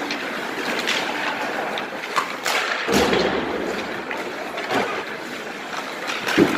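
Ice hockey practice sounds: skates scraping the ice and sticks and pucks knocking, with a few sharp knocks around the middle and one loud thud near the end.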